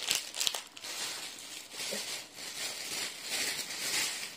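Plastic packaging rustling and crinkling as it is handled, with a few sharp clicks near the start.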